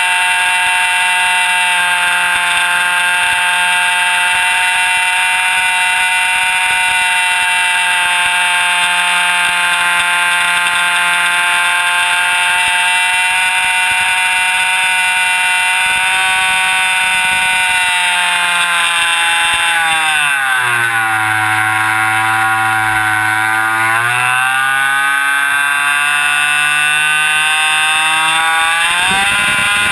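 Jett .90 two-stroke glow engine on an RC airplane running at high throttle with a high, steady whine, heard close up from a camera under the fuselage. About 18 seconds in the pitch falls as the engine is throttled back. It holds low for a few seconds, then climbs back to full power.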